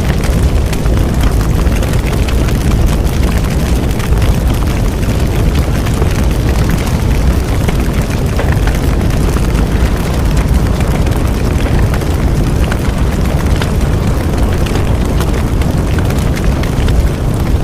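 Bonfire burning with a steady low rumble of flame, dotted with frequent small crackles and pops from the burning wood.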